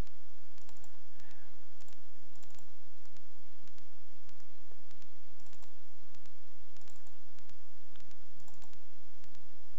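Computer mouse clicking irregularly, single and double clicks, while browsing through folders in a file dialog, over a steady low hum.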